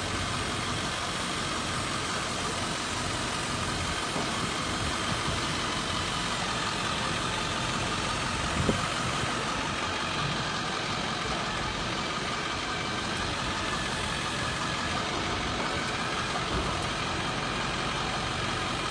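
Ford F-550 roll-off truck running steadily at idle while its hydraulic hoist tilts the dumpster up, with a faint steady whine over the engine and a single short knock about nine seconds in.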